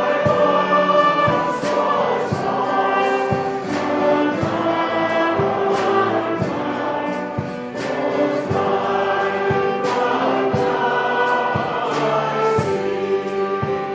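Choral music: a choir singing with instrumental accompaniment over a steady beat.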